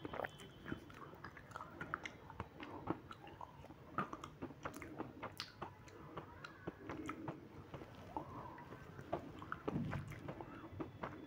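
Close-up mouth sounds of a person chewing: irregular wet clicks and smacks with a few small crunches.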